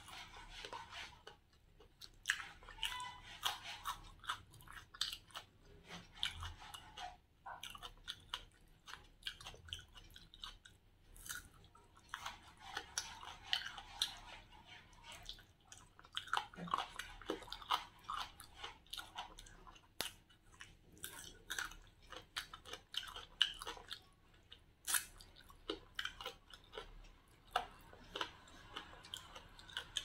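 Close-miked chewing of grilled chicken, with a steady run of short wet mouth clicks and smacks as the meat is picked off the bone by hand and eaten.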